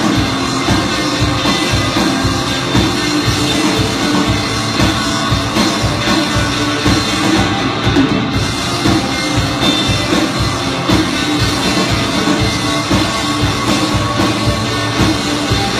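A live rock band playing loudly: electric guitars over a drum kit keeping a steady beat.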